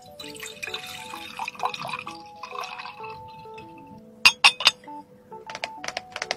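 Milky drink poured into a glass mug for about three seconds. About a second later come three sharp clinks as a lid is set on the glass, then several lighter taps. A simple tinkling background tune plays throughout.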